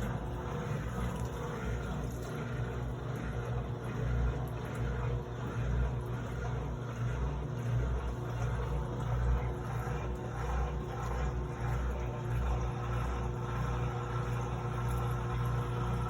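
Electrolux LT09E top-loading washing machine running on its quick cycle: a steady motor hum with an uneven low throb underneath.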